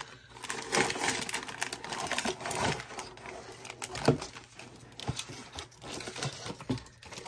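Plastic and foil packaging bags crinkling and rustling as parts are handled, with scattered small clicks and one sharp knock about four seconds in.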